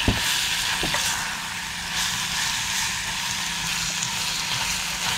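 Ground beef sizzling steadily as it browns in a stainless steel pot on a portable gas stove, stirred with a spoon. A sharp knock of the spoon against the pot comes right at the start, and a fainter one about a second in.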